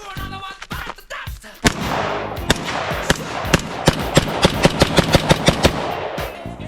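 AR-15 rifle fired rapidly, a long string of shots that speeds up to about five a second, with music in the background.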